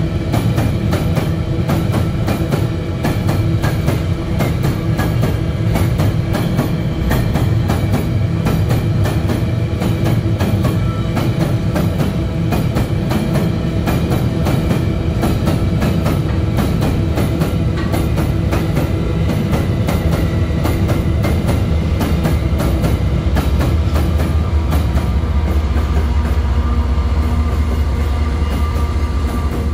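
Empty iron-ore wagons of a long freight train rolling past, their wheels making a rapid, steady clatter with some ringing tones. About three-quarters of the way in, a deep low rumble grows in under the clatter.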